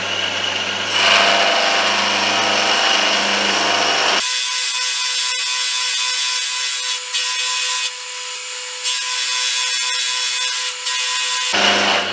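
Benchtop milling machine running, its end mill cutting annealed tool steel, a continuous grinding cut; the cut goes smoothly, a sign the steel has lost its hardness. About four seconds in, the sound changes abruptly, losing its low hum and leaving a thinner steady whine, and it changes back near the end.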